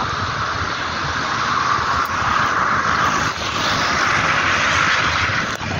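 Steady rushing noise of wind and road while riding a road bike at speed, with a low rumble underneath.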